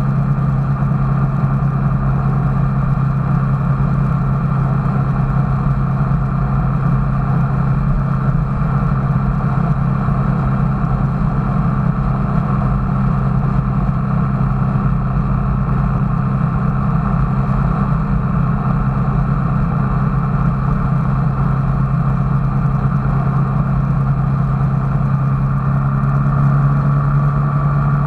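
A vehicle's engine running steadily, a constant low hum over even running noise, getting slightly louder near the end.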